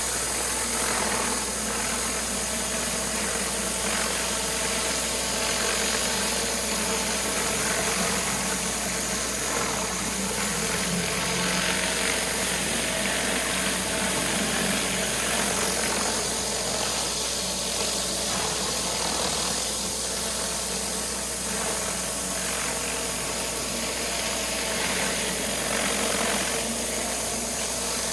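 Pressure washer running steadily: an engine's even drone with the hiss of the high-pressure water jet.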